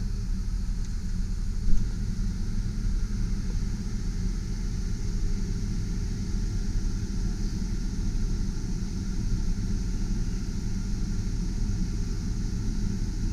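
The truck's 6.0-litre V8 idling steadily, heard from inside the cab, with the climate-control blower fan pushing air through the dash vents as the AC is checked. A single short click about two seconds in.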